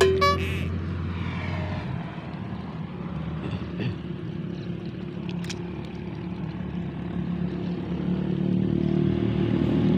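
An engine running steadily, a low drone that grows louder over the last few seconds.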